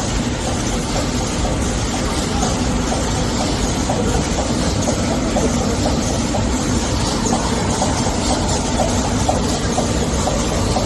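Automatic wet wipe production machine running steadily, a continuous mechanical whir with a regular light clacking from its moving parts.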